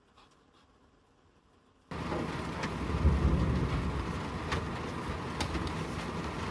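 Heavy rain, a steady dense hiss with a low rumble and scattered sharp drop ticks, cutting in abruptly about two seconds in after dead silence.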